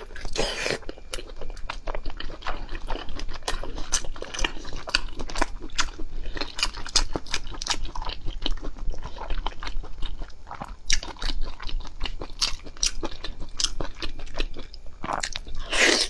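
Wet biting and chewing of a thick slab of raw salmon sashimi, a steady run of quick mouth clicks and smacks, several a second.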